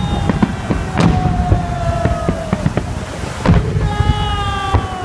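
Fireworks salute shells bursting overhead in quick succession: many sharp bangs and crackles over a low rumble. Twice, a long tone slowly falls in pitch over the bangs, the second starting near the end.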